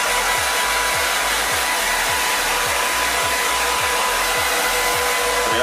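Handheld hair dryer blowing steadily with a constant motor whine, used to dry a ferret's fur after its bath.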